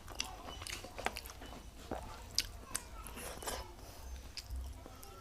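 A person chewing and eating a meal of rice and curry close to the microphone, with irregular wet mouth clicks and smacks.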